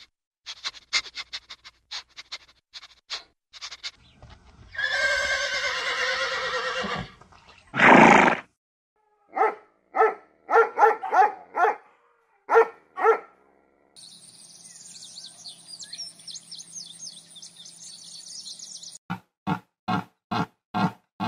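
A string of different animal sounds, one after another. First come scattered clicks, then a two-second noisy call with a wavering pitch and a loud short burst. A run of short calls about every half second follows, then a high steady chirring with chirps over it, and near the end a quick series of short calls.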